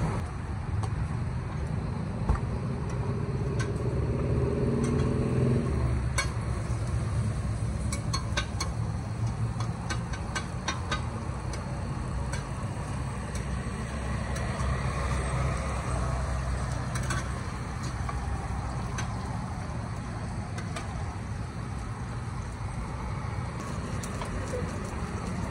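Eggs frying in a large wok at a street-food stall: a metal spatula clicks and scrapes against the pan, over a steady low rumble. A droning hum stops about six seconds in.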